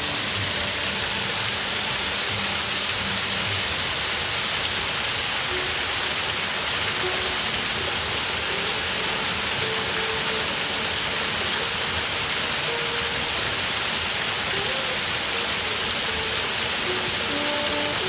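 Steady rush of a small waterfall, with faint music playing over it.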